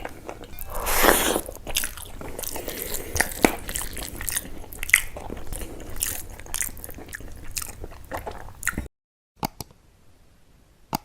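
Close-miked eating sounds: chewing, biting and crunching of a rice and fish curry meal, with a loud crunch about a second in. The sounds stop abruptly near the end.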